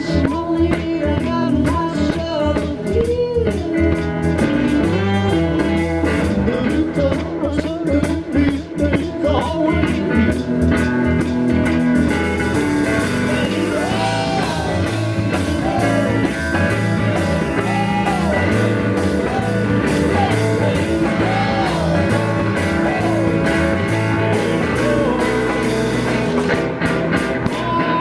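Blues-rock music with guitar and a steady beat.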